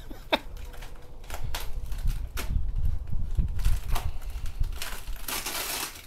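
Box cutter slitting open a cardboard box: irregular clicks and scrapes, with a longer scratchy rasp near the end.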